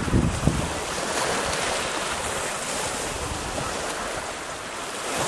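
Sea surf washing steadily onto the shore. Wind rumbles on the microphone in the first half second.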